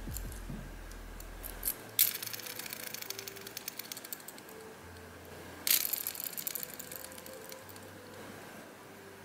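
Fishing reel being cranked, its gears clicking and ratcheting in two quick bursts, about two seconds in and again near six seconds, each starting sharply and fading out as the retrieve slows.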